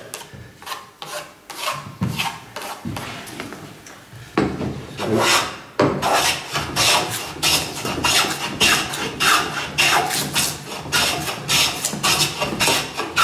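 Metal hand plane shaving across the face of a wooden board in short, quick strokes, about two a second from around four seconds in, each a dry rasping swish; a few lighter, sparser scrapes come before. The face is being planed down to pencil lines to clear feathery, torn grain.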